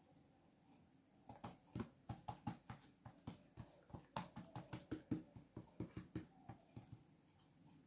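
Faint, irregular soft pats and sticky smacks of oiled hands folding and pressing yeast dough flat on a tabletop, starting about a second in.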